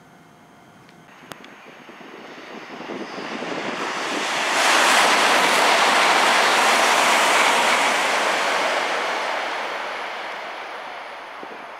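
N700-series Shinkansen running through a station at speed without stopping. A rushing air-and-wheel noise builds for about four seconds, holds at its loudest for a few seconds as the train passes, then fades as it runs away.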